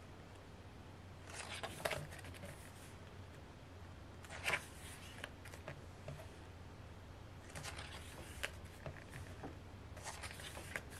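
Pages of a thick photo book being turned by hand: about four soft paper swishes, spread a few seconds apart, over a faint low hum.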